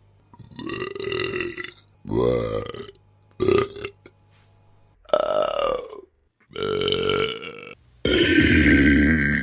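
A string of six human burps, one after another with short pauses between them. Each burp differs in length and pitch; the last is the longest and loudest.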